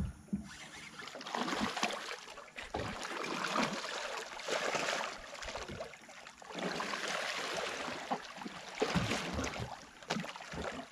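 Water splashing and sloshing in irregular surges as a hooked fish thrashes at the surface beside the boat while being brought in, with a few knocks.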